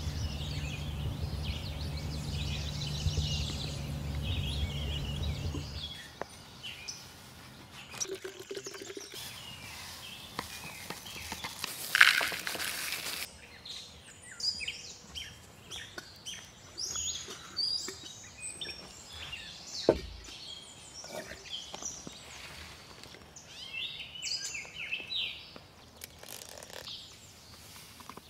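Small birds chirping and singing throughout, with a low steady rumble under them for the first six seconds. After that come handling noises from a plastic bottle and a cereal bowl on a wooden picnic table as milk is poured over cereal, including a brief loud rush about twelve seconds in and a sharp knock near twenty seconds.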